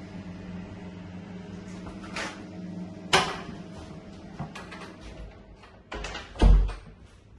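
A door being handled: a steady hum, a couple of sharp clicks about two and three seconds in, then a heavy low thump near the end, the loudest sound, as of a door shutting.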